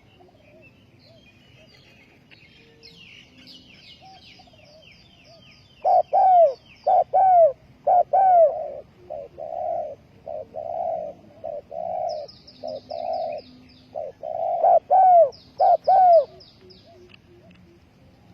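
Spotted dove cooing: a run of repeated coos begins about six seconds in and goes on for about ten seconds. A small bird's rapid, high twittering trills sound before and between the coos.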